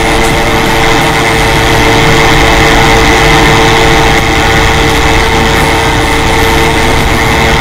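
Ultralight aircraft engine running at a steady cruise in flight, a constant drone heard over rushing air in the open cockpit.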